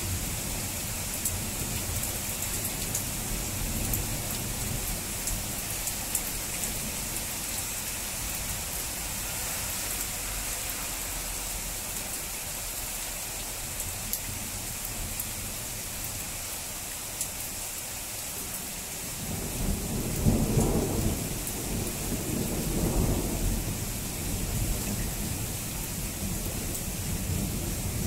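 Steady rain with scattered sharp drop ticks. About two-thirds of the way through, a long roll of thunder builds, peaks twice and slowly eases off.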